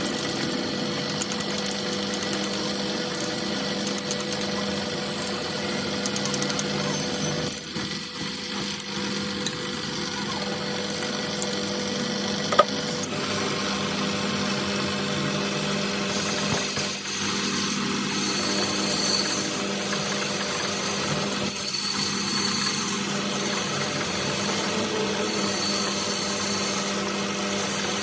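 Workshop machinery running steadily with a constant hum, with one sharp click about twelve seconds in.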